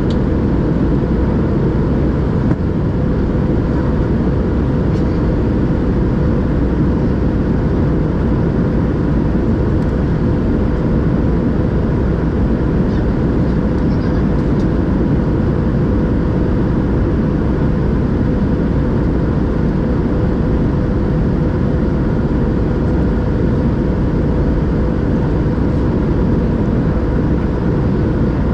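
Steady cabin noise inside a Boeing 737-700 on approach: a constant rush of airflow and engine drone, with a faint steady whine.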